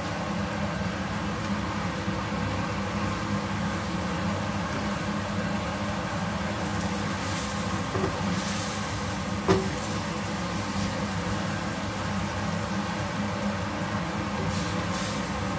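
Chili sambal paste frying in oil in a wok pan, a steady sizzle over a constant hum. A spatula knocks sharply on the pan about nine and a half seconds in as squid are stirred into the paste.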